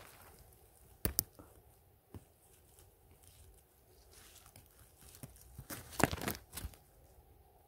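Leaf litter and twigs rustling and crackling under a hand picking yellowfoot chanterelles from the forest floor. There are a couple of sharp snaps about a second in and a louder cluster of crackles about six seconds in.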